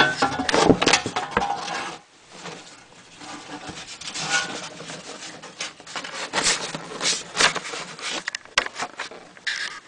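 Handling noise: irregular rubbing, rustling and sharp clicks as plastic vent and purge tubes are worked into place against the fuel expansion tank, with the hand-held camera being jostled. The noise is busiest in the first couple of seconds and again for a couple of seconds past the middle.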